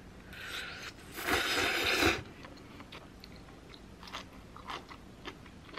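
Eating noodle soup: a loud slurp of clam kalguksu noodles lasting about a second, then chewing heard as a run of small clicks.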